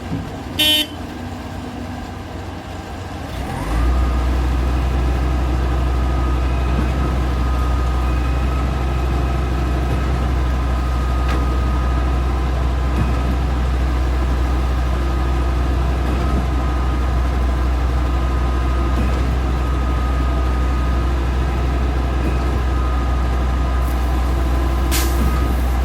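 Mobile concrete pump truck's engine rises in pitch about three and a half seconds in and then runs steadily at high revs, with a heavy low hum and a steady whine. A brief sharp sound comes under a second in.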